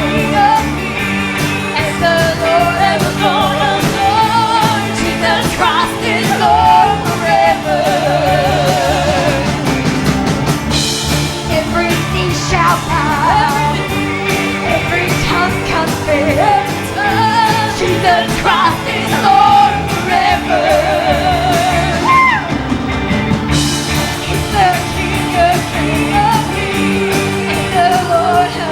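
A live church praise band plays an upbeat gospel song over a steady beat, with sung melody lines that waver in heavy vibrato.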